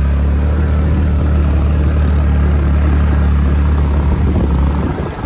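A motor vehicle engine running steadily close by, a loud low hum that weakens near the end.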